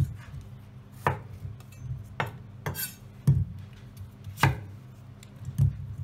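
Chef's knife cutting through a peeled sweet potato onto a wooden chopping board: five firm knocks of the blade on the board, about one a second, with a brief scrape between them.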